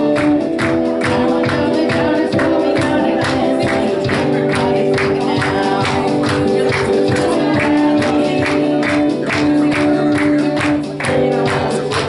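Live church worship band music: a steady beat of about four strokes a second over held keyboard-pad chords and bass.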